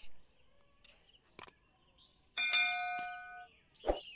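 A single bell-like chime struck about two and a half seconds in, ringing for about a second before it stops, with a soft low beat near the end. Faint high chirping and a steady high hiss sit underneath.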